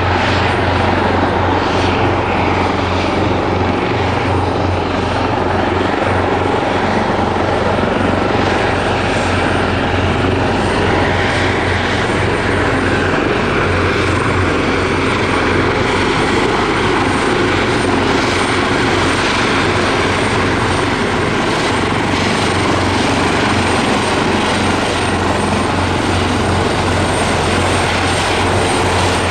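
Airbus Helicopters EC225LP Super Puma, a twin-turbine helicopter, running steadily: a dense, even rotor and engine sound with a strong low throb and a thin, steady high whine.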